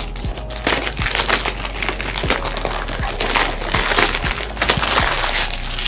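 Plastic shrink wrap being torn and pulled off a DVD box set, crinkling and crackling irregularly.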